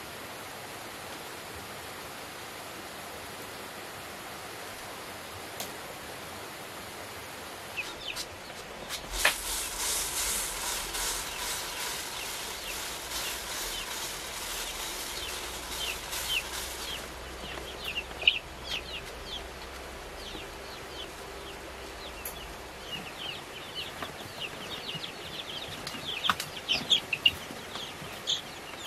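Chickens: a burst of wing-flapping about nine seconds in, then many short high calls and clucks that grow busier near the end, over a steady background hiss.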